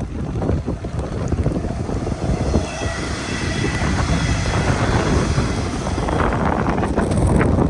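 Strong typhoon wind buffeting the microphone while a Hanshin Railway electric train passes. A steady high whine comes midway, and a louder rushing clatter builds near the end.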